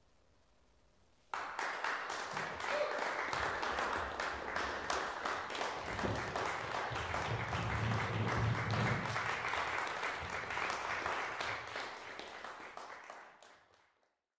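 A roomful of people applauding. After about a second of silence the clapping breaks out all at once, stays dense and steady, then fades away near the end.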